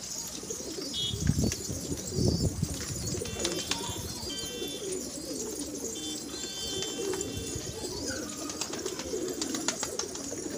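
A flock of domestic pigeons cooing continuously, with scattered sharp clicks and two louder low thumps about one and two seconds in.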